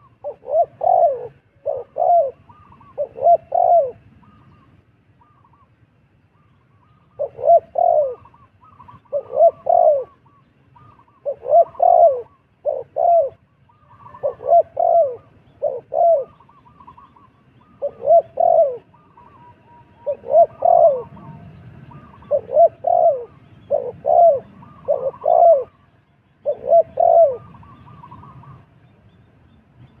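Dove cooing in repeated phrases of two or three deep coo notes, with short pauses between phrases. Fainter chirps of small birds sound behind it.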